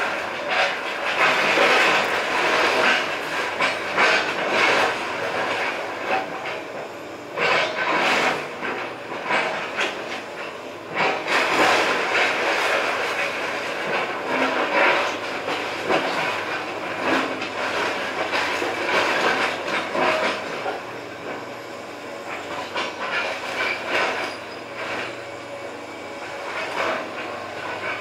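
Komatsu excavator demolishing a wood-frame house: its engine hums steadily under repeated cracking and crashing of splintering timber and falling debris.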